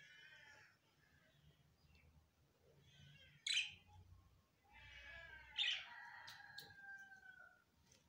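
Budgerigars chirping and chattering. Soft chirps open, sharp loud chirps come about three and a half and five and a half seconds in, and a chattering warble ends in a drawn-out whistle.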